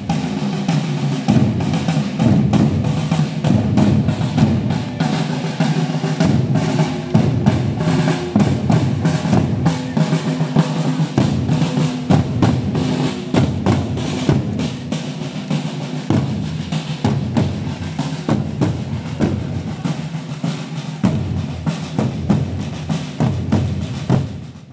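Marching drums of a historical pageant group playing a rapid rolling cadence, the phrase repeating about every five seconds.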